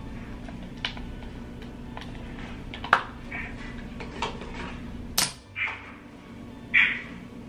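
Small objects being handled on a bathroom counter: scattered sharp clicks and light knocks, about four of them, with a few soft swishes. A steady low hum runs underneath.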